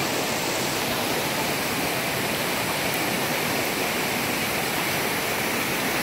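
Waterfall and creek water rushing in a steady, continuous roar.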